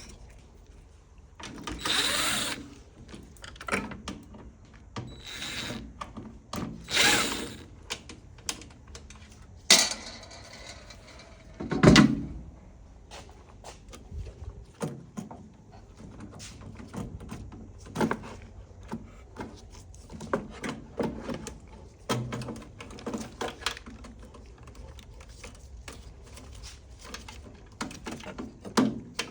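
Scattered clicks, knocks and rustles of hands and tools working on parts inside an opened microwave oven, with a louder thump about twelve seconds in.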